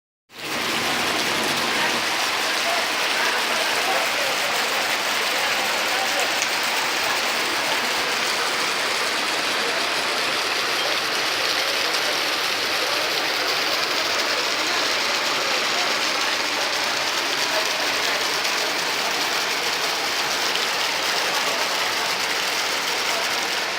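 Flash floodwater rushing steadily, a constant dense wash of water noise.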